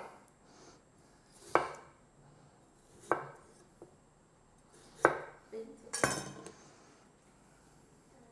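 Kitchen knife slicing through cooked potatoes onto a wooden cutting board: single knocks of the blade on the wood about a second and a half apart, then a brighter clatter about six seconds in.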